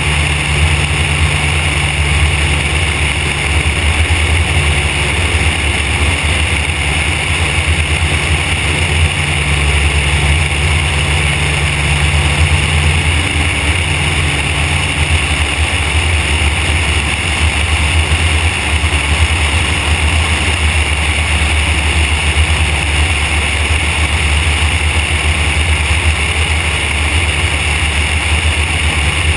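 Van's RV-4 light aircraft in flight: its piston engine and propeller running at a steady cruise drone, mixed with wind rushing over the under-fuselage microphone.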